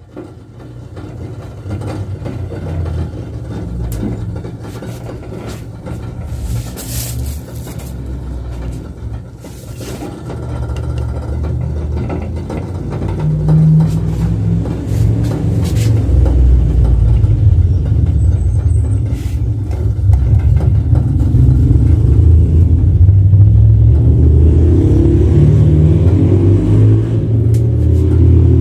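A steady low rumble that grows louder about halfway through and stays loud, with a few faint clicks over it.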